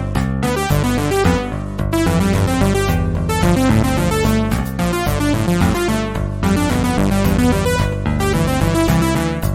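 Upbeat electronic synthesizer music with a steady rhythm.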